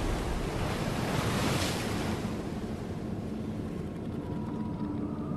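Ocean ambience of waves and wind from an animated show's soundtrack: a steady rush of noise that swells about a second and a half in, then thins out. About four seconds in, low sustained music tones begin to come in under it.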